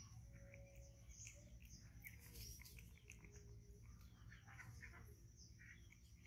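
Near silence, with a few faint, short high chirps and clicks scattered throughout.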